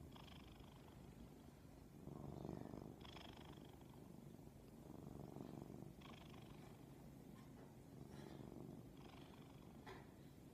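Domestic cat purring softly and steadily while dozing, the purr swelling and easing with its breathing about every two to three seconds.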